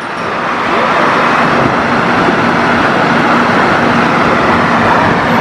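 Steady, loud engine and vehicle noise, swelling over the first second and then holding level, with a faint steady hum under it.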